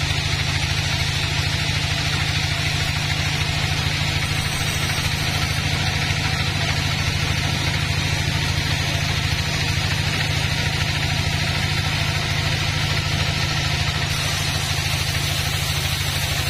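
Large vertical band sawmill running steadily, its blade cutting lengthwise through a log: a steady low motor hum with a fast, even pulse under a steady hiss of the cut.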